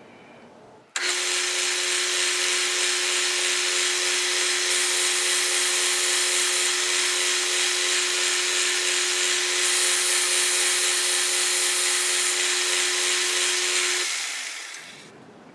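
Metal lathe switched on about a second in and running steadily with a constant whine while a boring bar cuts a relief inside the backplate's bore. It is switched off near the end, and the whine fades as the spindle spins down.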